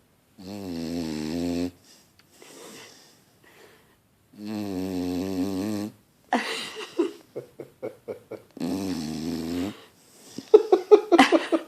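A sleeping dog snoring loudly: three long pitched snores about four seconds apart, with a run of short puffs between the second and third. Near the end comes a rapid burst of loud short sounds.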